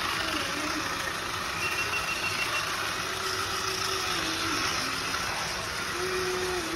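Small battery toy car's electric motor running, a steady whir whose pitch wavers up and down as the car labours on wet track.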